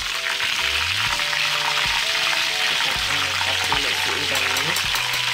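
Hot cooking oil sizzling steadily in a metal wok as fried shrimp are lifted out with a spoon, with a few light knocks of the spoon and strainer against the pan.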